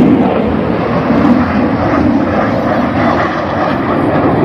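Four jet fighters flying past low in close formation, their engines making a loud, steady, rushing jet roar.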